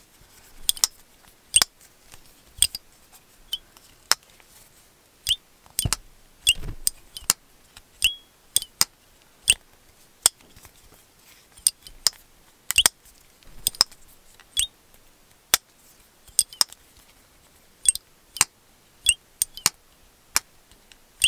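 Maxace Albatross slip joint knife being opened and closed again and again, its blade snapping through the several stops of its backspring: a long, uneven string of sharp metallic clicks and snaps, many with a short high ring, a sound called wicked and likened to an alien.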